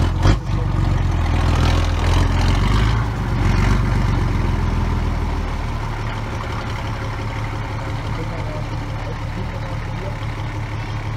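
Unimog 417's diesel engine pulling at low speed as the truck crawls over rough ground, with a single sharp knock just after the start. About six seconds in the engine eases off to a quieter, steady idle.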